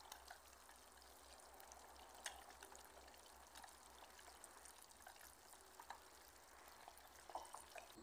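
Near silence: faint outdoor background hiss with a few soft scattered ticks.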